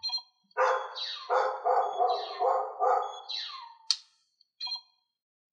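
D-Ark digivice toy playing sound effects through its tiny built-in speaker: a few falling electronic swoops and a run of about five quick pulsing tones, thin and tinny with no bass, then a sharp click and a short blip before it goes quiet.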